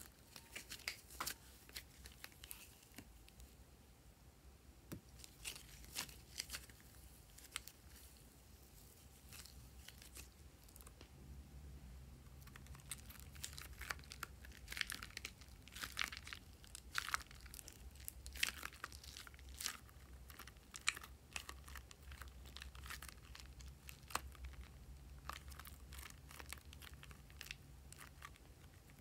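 Hands squeezing and kneading slime-filled rubber balloons, making faint, irregular crackles and crinkles.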